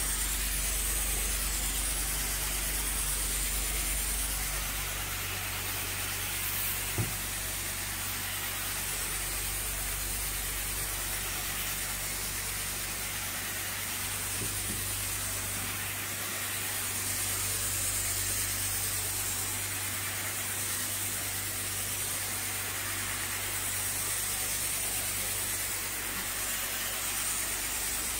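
Carpet-cleaning machine running steadily: a low hum under an even hiss.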